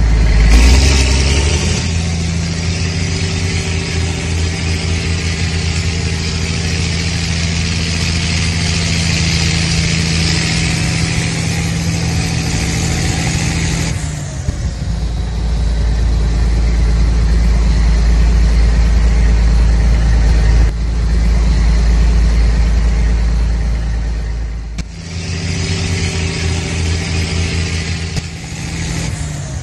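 Toy tractor running steadily with a motor-like drone as it drags its rear grading blade through sand. About halfway through, the sound turns to a deeper rumble, and near the end the first, higher drone returns.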